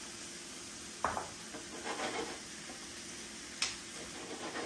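Chopped fresh tomatoes going into a hot pan of shallots and garlic and being stirred with a spatula: scraping and stirring over a faint steady sizzle, the cold tomatoes having cooled the pan. A sharp knock about a second in and a sharp click near the end.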